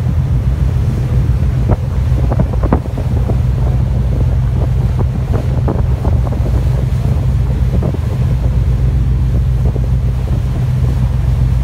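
A tug's engines running with a steady low drone. Wind buffets the microphone over the rush of water in the propeller wake.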